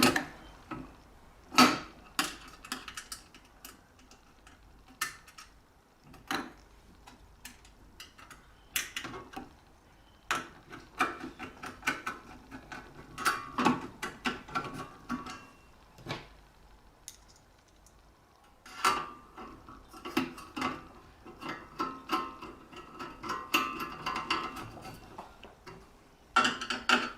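Irregular clinks and knocks of small metal parts: screws and metal cover panels being handled and fitted back onto a continuous band sealer during reassembly.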